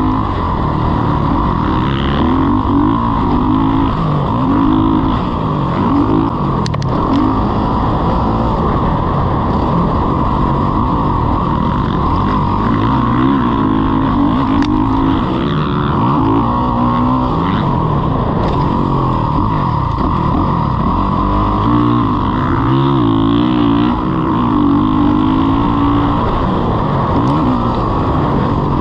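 Motocross bike engine, heard from on board, revving up and falling back over and over as the rider works the throttle and gears around the track.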